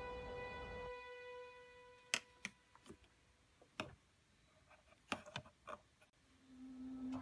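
Background music fading out, then a handful of sharp, separate clicks spread over several seconds, and a steady low tone starting about a second before the end.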